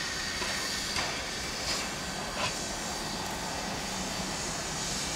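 Quincy Railroad No. 2, a 2-6-2T steam tank locomotive, letting off steam: a few soft exhaust chuffs in the first couple of seconds, then a steady hiss of steam blowing from its open cylinder cocks.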